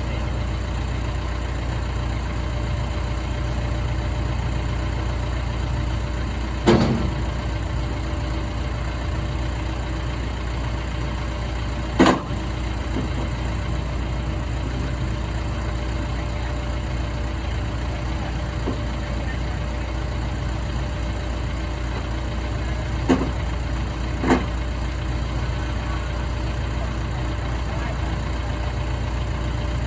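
Diesel engine on an old Ausdrill air-core drill rig running steadily at an even speed, with four sharp knocks or clanks over it.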